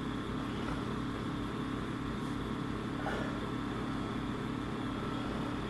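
A steady low hum with no other sound of note, and a faint tick about three seconds in.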